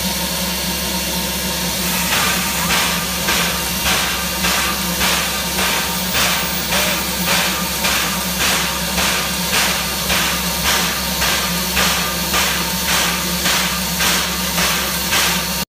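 Steam locomotive standing in steam, hissing steadily. About two seconds in, a regular pulsing beat joins the hiss, roughly three beats every two seconds.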